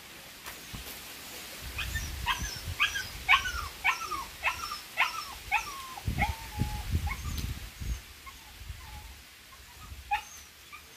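An animal's short yelping calls, each falling in pitch, repeated about twice a second for several seconds, with a last one near the end. Low thumps of scuffling come under the later calls.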